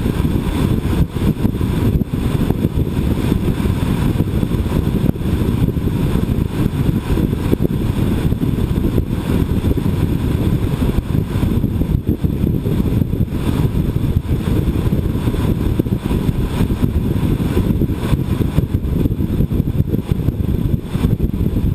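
Steady low rumble of wind and road noise on a moving camera's microphone, with traffic running alongside.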